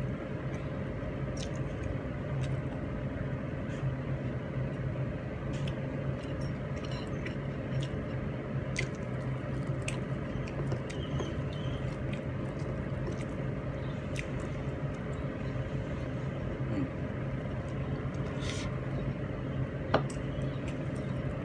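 Eating by hand: chewing, with small wet clicks and smacks of lips and fingers picking at chicken rendang and rice on a plate, over a steady low hum. A sharp click near the end is the loudest sound.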